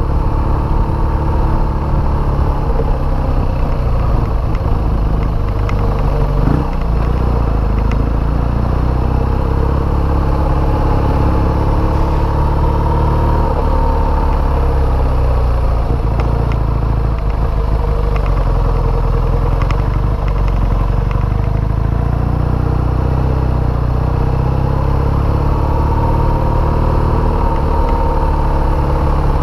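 BMW motorcycle engine running under way at low, steady road speed, its pitch rising and falling gently with the throttle. There is one brief knock about six seconds in.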